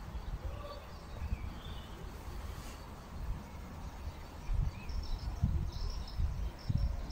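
Birds calling and chirping in short scattered notes over a low, gusty rumble of wind on the microphone, the gusts growing stronger about halfway through.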